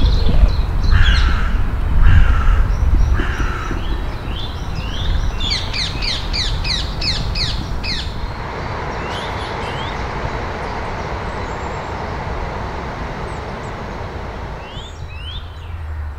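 A crow cawing three times, about a second apart, followed by a small songbird's rapid series of short chirps and a couple more chirps near the end.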